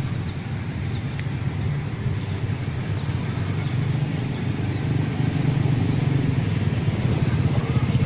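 A vehicle engine running steadily, getting louder toward the end.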